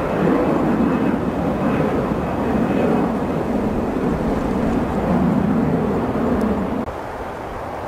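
Airbus A330 airliner climbing out after takeoff: steady jet engine noise, a deep rumble with a faint high whine in the first few seconds. It drops sharply to a quieter rumble about a second before the end.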